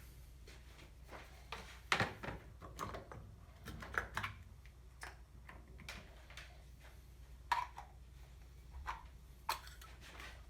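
Irregular clicks and knocks of tools and small metal starter-motor parts being handled, over a steady low hum.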